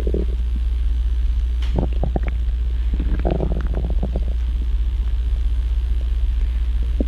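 Stomach growling: short gurgling rumbles near the start and again between three and four seconds in, with a few quick pops about two seconds in, over a constant low hum.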